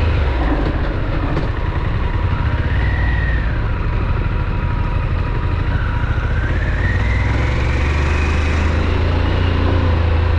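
Harley-Davidson Pan America's 1250 V-twin engine running under way off-road, over a steady low rumble; its pitch rises and falls twice as the throttle is opened and eased.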